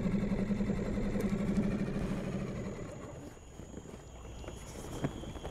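Small fishing boat's engine running steadily, then throttled back or cut about two and a half seconds in, its sound falling away. A few light knocks come near the end.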